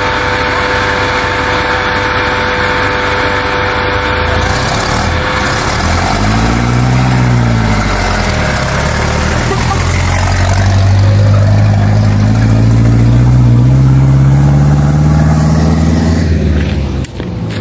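Diesel engine of a modified 4x4 jeep laden with oil palm bunches, idling, revved once about six seconds in, then pulling away under load, its pitch rising steadily as it accelerates. The sound drops away near the end.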